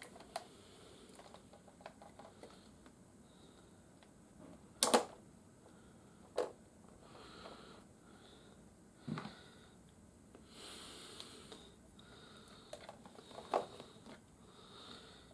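Hard plastic toy parts being handled and fitted together: scattered light clicks and taps, with a few sharper knocks, the loudest about five seconds in, and a soft rustle a little past halfway.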